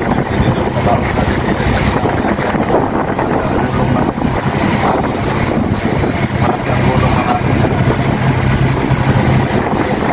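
Fishing boat's engine running with a steady low hum, under heavy wind buffeting the microphone and the rush of the sea.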